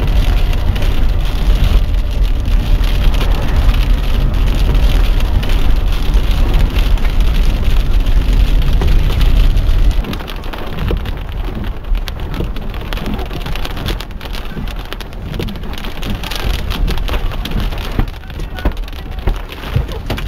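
Rain pattering steadily over a heavy low rumble; about halfway through the rumble drops away suddenly, leaving quieter rain with gusts of wind noise.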